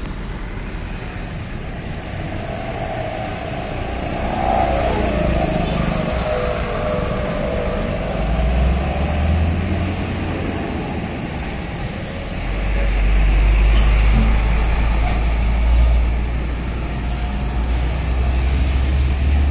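Road traffic passing close by: diesel trucks, a dump truck and then a container truck, along with motor scooters, their engines running as they go past. A deeper, louder engine rumble comes in a little past the middle.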